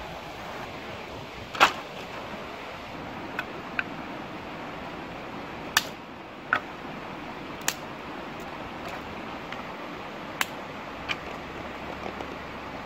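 Steady rush of a shallow rocky stream, with about eight sharp, irregular wooden cracks and clacks as dry sticks are handled and broken. The loudest crack comes about one and a half seconds in.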